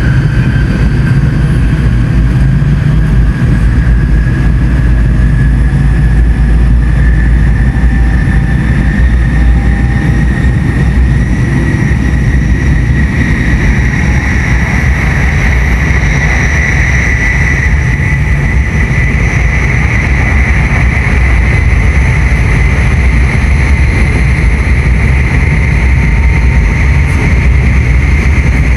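N700S Shinkansen train running, with a loud steady rumble and a motor whine that rises slowly in pitch as the train gathers speed.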